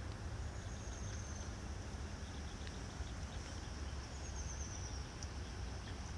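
Quiet outdoor ambience: a steady low rumble, with two faint high trills that fall slightly in pitch, one near the start and one about two-thirds of the way through.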